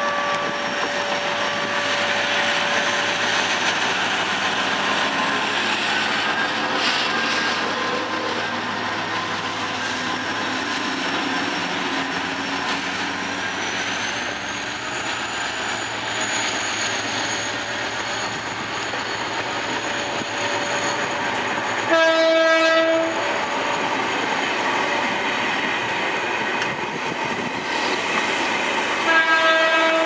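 Passenger coaches of a departing diesel-hauled train rolling past with a steady rumble of wheels on rail, and a high whine that rises about halfway through and then holds. A train horn sounds for about a second roughly two-thirds of the way in, and again near the end; these are the loudest moments.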